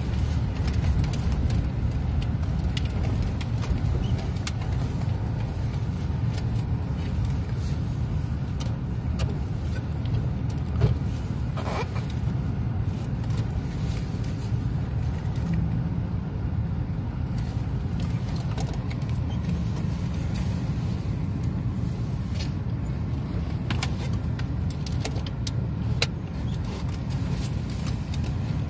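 Car cabin noise while driving slowly: a steady low engine and tyre rumble, with scattered light ticks and a couple of sharper knocks, about eleven seconds in and near the end.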